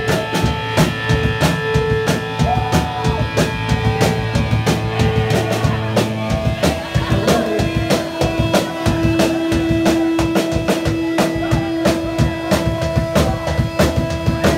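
Punk rock band playing live: rapid, steady drum-kit hits with bass drum and snare under long held guitar notes. The held note drops to a lower pitch about six and a half seconds in.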